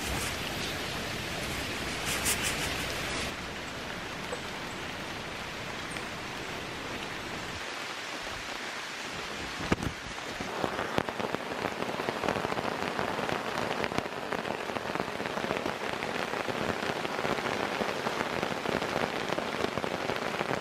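Rain falling in a steady hiss, then from about halfway pattering densely on the nylon tarp overhead and growing heavier, with a single sharp knock just before the pattering starts.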